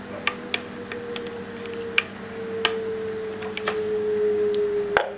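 Silicone spatula scraping carrot purée out of a glass jar into a ceramic bowl, with scattered sharp clicks and knocks as it taps the glass and the bowl rim. Underneath runs a steady tone that sinks slightly in pitch and stops near the end.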